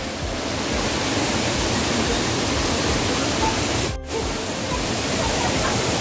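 Falling water of a waterfall, a steady even rush that breaks off for an instant about four seconds in.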